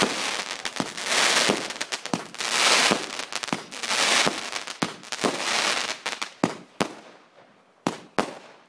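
Firework finale barrage: a rapid run of sharp bangs over a dense crackling hiss, which thins out after about five seconds to a few separate bangs.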